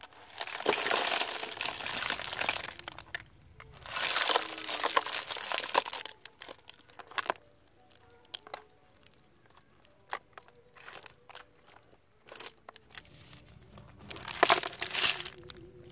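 Freshly steamed snail shells clattering against each other and a plastic colander as they are poured in and stirred by hand. There are three bursts of clatter, about the first and second seconds in, and near the end, with scattered single clicks between them.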